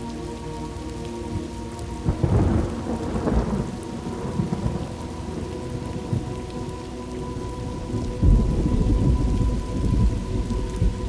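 Steady rain falling, with two rolls of thunder: one about two seconds in and a longer one about eight seconds in.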